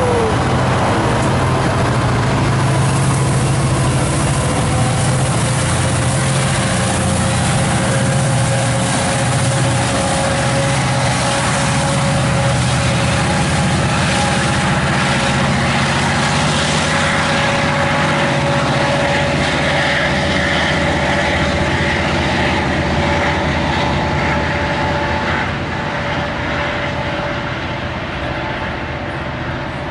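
Caltrain passenger train with its MP36PH-3C diesel locomotive at the rear, passing close and moving away: steady diesel engine hum and wheel-on-rail noise with a steady high whine, fading somewhat near the end.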